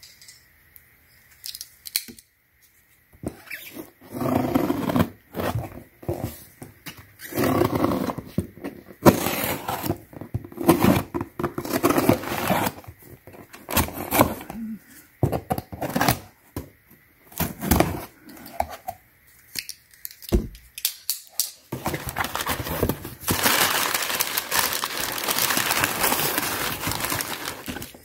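A cardboard shipping box being opened by hand: a box cutter slitting the packing tape, tape tearing and the box and flaps knocked about in irregular bursts. Toward the end comes several seconds of loud, steady rustling and tearing of tape and crumpled kraft packing paper.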